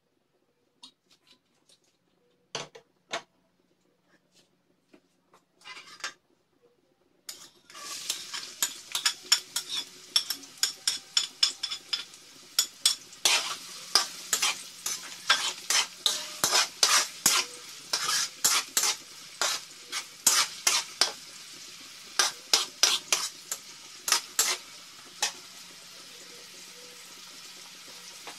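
Chopped red onion frying in hot oil in an aluminium wok: a steady sizzle that starts suddenly about seven seconds in, after a few light knocks. Over it, a metal spatula scrapes and taps against the wok again and again as the onion is stirred.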